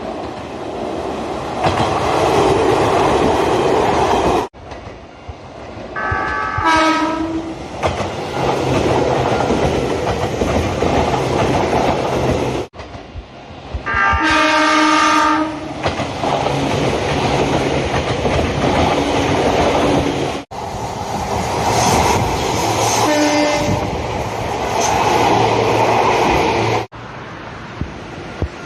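Local electric train running with rumble and rail noise, over several short recordings that cut off abruptly. The train's horn sounds briefly about six seconds in, again for about a second and a half near the middle, and more faintly about two-thirds of the way through.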